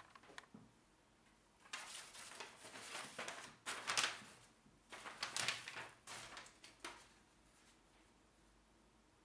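Old folded paper instruction sheet being unfolded and smoothed out by hand: crisp paper rustling in several bursts, starting about two seconds in and dying away about seven seconds in.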